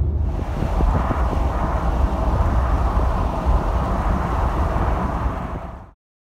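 Road noise of a moving car heard from inside the cabin: a steady low rumble that cuts off abruptly near the end.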